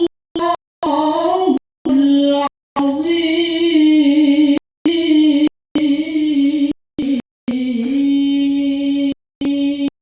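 A woman reciting the Qur'an in the melodic tilawah style, drawing out long, ornamented held notes. The voice is cut by many abrupt dropouts to silence.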